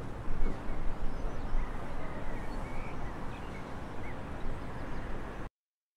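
Outdoor field recording: a steady, low rumbling noise with faint short bird chirps over it, cut off abruptly about five and a half seconds in.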